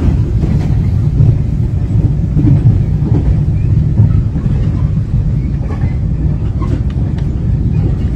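Passenger train running at speed, heard from inside the carriage as a steady low rumble.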